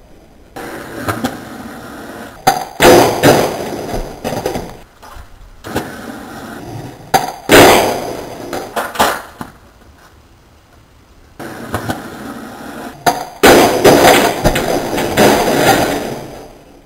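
Skateboard wheels rolling on concrete, broken by several hard clacks and bangs as the board strikes a homemade wooden grind box and the ground during back nose grind attempts, the last run ending in a fall.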